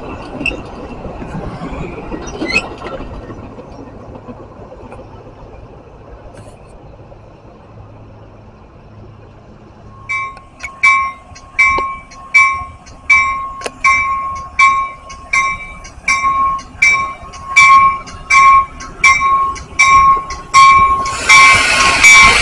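Railroad grade-crossing warning bell dinging evenly, about three strokes every two seconds, starting about ten seconds in. Before it, the fading rumble and wheel clicks of a passing Metra bilevel commuter train. Near the end, a loud hiss of train wheels rises as a Metra cab car rolls into the crossing.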